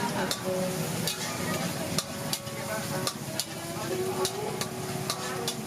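Wok stir-frying: food sizzling in hot oil while a metal spatula scrapes and clacks against the wok, about two strikes a second at an uneven pace.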